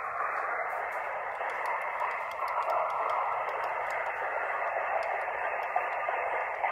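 Toy police car's small built-in speaker playing a police-radio sound effect: steady, thin radio static with faint crackling ticks.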